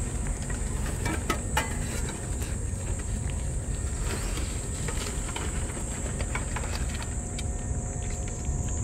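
Cats eating wet food from a metal dish: scattered small clicks of chewing and licking, a few sharper ones about a second in. Under them a steady high insect drone and a low rumble.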